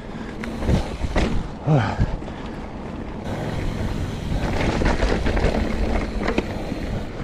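Trek Remedy mountain bike rolling fast over a dirt singletrack: tyre and trail noise with the bike rattling and several sharp knocks over bumps, and wind buffeting the microphone.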